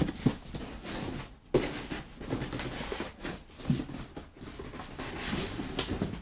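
Cardboard packaging inserts being handled: rustling and scraping, with a few knocks, the sharpest about a second and a half in.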